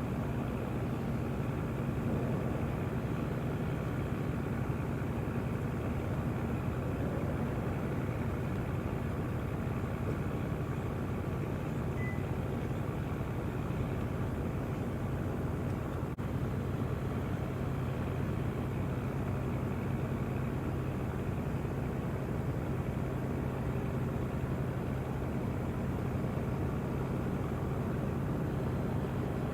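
A steady, unchanging low engine hum.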